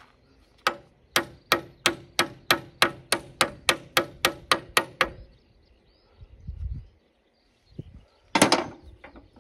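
Hammer blows on a steel pin being driven into a mini excavator's track frame: about fifteen quick, ringing metal-on-metal strikes, roughly three a second, stopping about five seconds in. A short loud clatter follows near the end.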